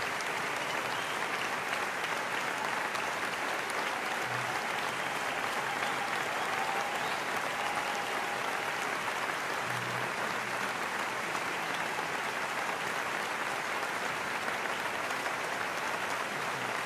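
Sustained applause from an audience, many hands clapping at an even level.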